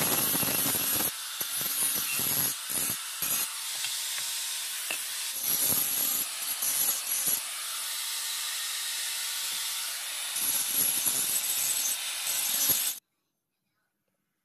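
Electric angle grinder grinding a steel blade: a steady motor whine under a harsh rasp that swells and drops as the disc bites into the metal and eases off. It cuts off suddenly near the end.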